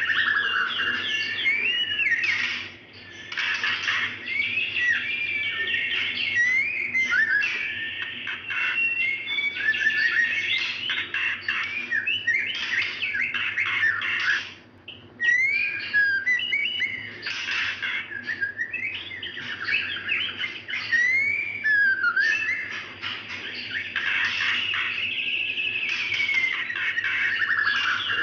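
Female white-rumped shama calling to attract a male: a near-continuous run of whistled notes sliding up and down, mixed with short harsh rasping bursts, with brief pauses about 3 and 15 seconds in.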